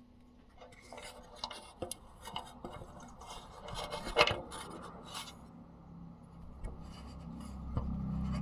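Small metallic clicks, taps and rubbing from hands and tools working on a car trunk's lift-support hardware, with one sharper click about four seconds in. A low steady hum comes up over the last couple of seconds.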